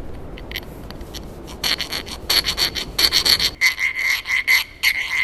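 Hand file rasping back and forth in quick strokes across the hardened steel ring of a reinforced cam phaser, starting about a second and a half in. The file skates over the surface without biting, and a high metallic ringing note sounds through the later strokes: the ring is too hard to be filed.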